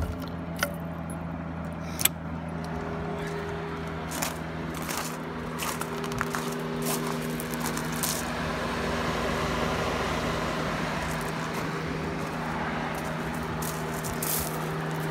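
Car ignition keys jangling and clicking at the ignition switch, over a steady low mechanical hum.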